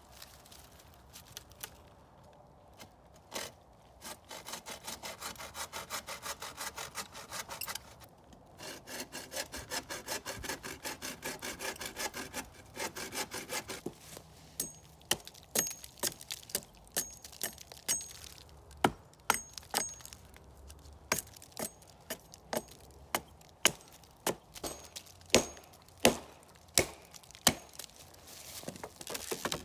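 Hand saw cutting through a dead wooden pole in quick, even strokes, with a short pause partway. Then a tomahawk chopping the wood in sharp single blows, about one and a half a second, some with a brief metallic ring.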